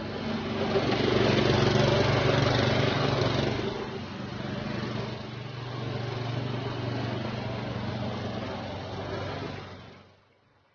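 Muck Truck power barrow's small engine running as the barrow is driven. It is loudest in the first few seconds, then steadier, and fades out near the end.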